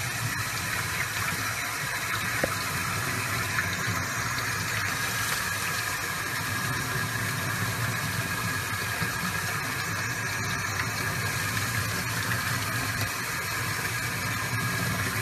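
Tap water running steadily into a sink, splashing over a puppy being washed under the stream.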